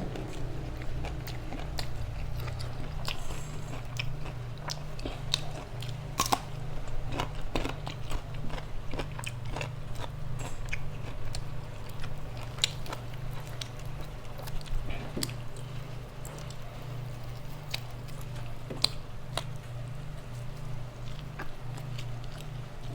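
A person chewing and biting food close to the microphone, with many small irregular clicks and crunches, over a steady low hum.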